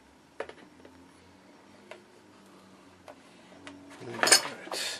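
A few light clicks and taps of the circle cutter and a thin plastic sheet on the work surface, then near the end a loud, brief rattling crackle as the scored plastic sheet is handled and flexed.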